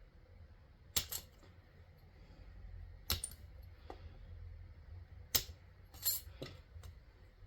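A handful of sharp, separate taps and clicks of small hard objects on a desk, about six spread unevenly across a few seconds, over a faint low hum.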